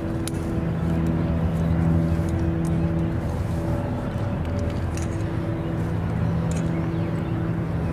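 Background music of held low notes that change every second or two over a low rumble, with a few faint clicks.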